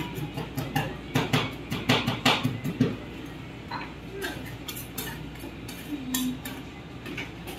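Two metal spatulas chopping and tapping against the steel freezing plate of a rolled ice cream counter, breaking cookie pieces into the cream base. Quick clacks come close together for the first three seconds or so, then more spaced out.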